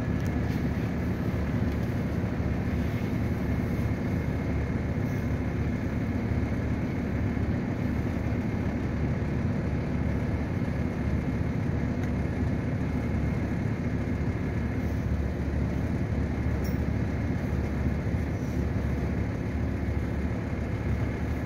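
River passenger boat's engine running steadily under way: a constant low drone with a faint, even whine above it.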